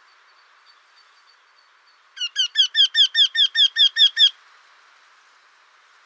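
Eurasian wryneck singing. Starting about two seconds in, it gives a run of about a dozen evenly spaced, ringing notes, about five a second, lasting about two seconds. Each note rises and then falls slightly in pitch.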